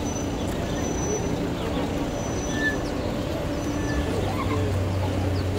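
Busy street ambience: traffic running with pedestrians chattering in a walking crowd. A low, steady engine hum comes in about four seconds in.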